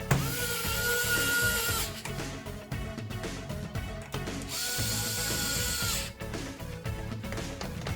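Small cordless electric screwdriver running in two short bursts, about two seconds each, a steady whine as it drives screws in. Background music plays underneath.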